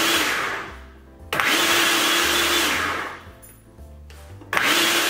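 Electric blender run in short pulses, chopping broccoli for a pizza crust: each pulse starts suddenly with a steady motor whine, runs about a second and a half, then winds down. A pulse is dying away at the start, new pulses begin about a second in and again near the end, and quiet background music with a bass line fills the gaps.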